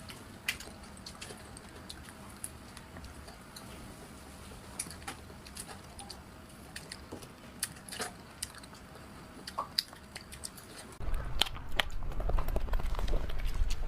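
Quiet eating sounds: scattered short clicks and crunches of biting and chewing. About eleven seconds in, a louder, low-pitched sound comes in suddenly and keeps going.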